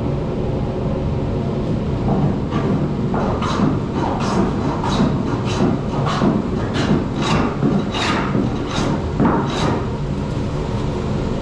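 Hand plane shaving the wooden gunwale of a strip-built canoe, in a run of quick scraping strokes about two a second that starts about two seconds in.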